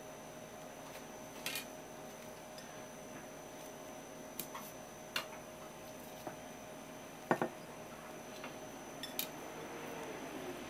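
Scattered sharp taps and clicks of a kitchen knife and a ceramic plate on a wooden cutting board, the loudest a double knock about seven seconds in. A steady faint hum runs underneath.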